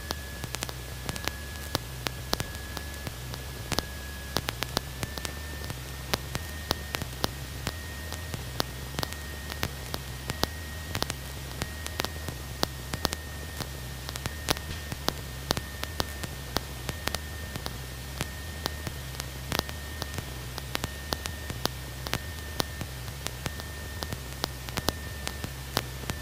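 Cockpit audio recording in a Cessna 150 in flight: a steady hiss with frequent sharp crackles and a faint high whine holding one pitch, over a low hum. The crackling comes from old recording equipment.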